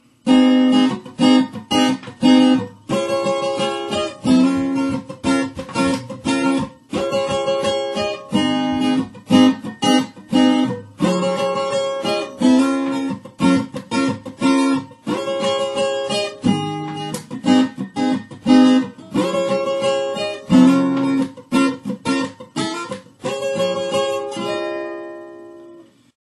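Acoustic guitar with a capo on the fourth fret, strummed in a choppy, syncopated chord rhythm. Near the end the last chord rings out and fades away.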